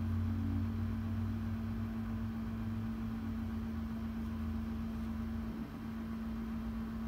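A steady low hum with one constant tone and a faint hiss, unchanging throughout.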